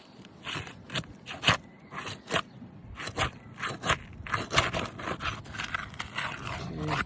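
A metal snake tool scraping and prying under asphalt roof shingles to break their seal, in a run of short, gritty strokes about twice a second.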